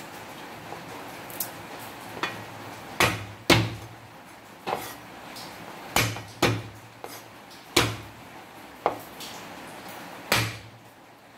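A heavy cleaver striking garlic cloves on a wooden cutting board: about ten sharp knocks at uneven intervals, the loudest about three and a half seconds in.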